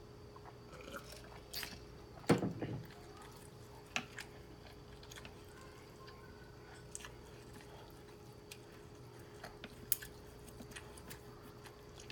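A person chewing food close to the microphone, with scattered wet mouth clicks. A louder, brief low thud comes about two seconds in.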